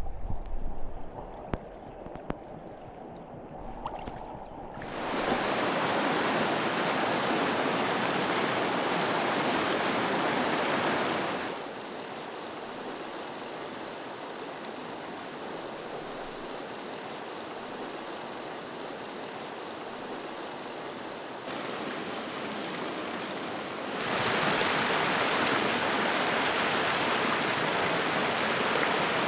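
Rushing water of a fast, rocky river run, starting abruptly about five seconds in after a few faint knocks and splashes. It drops to a softer steady rush about midway and turns loud again near the end.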